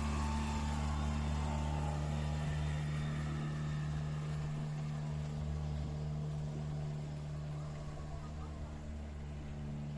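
Boat engine running steadily: a low, even hum with no change in pitch.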